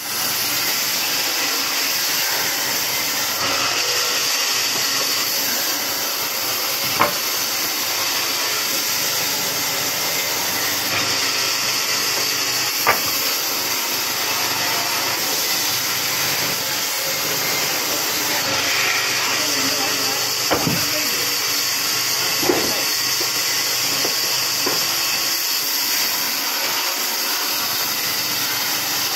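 Band saw running and cutting through a thick wooden block: a steady, hissing saw noise, with a few sharp clicks scattered through.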